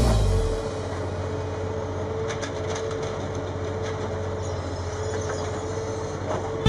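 Railway track machine running on the rails: a steady mechanical noise with a constant whine and a few faint clicks.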